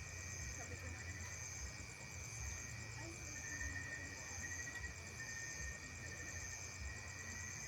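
Insects chirring steadily in a continuous chorus: a fast, high pulsing trill over a lower steady buzz, with a low rumble beneath.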